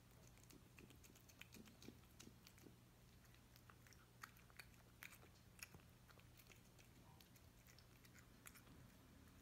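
A domestic cat chewing and smacking as it eats from a dish: faint, irregular wet clicks of its jaws and tongue, a few every second.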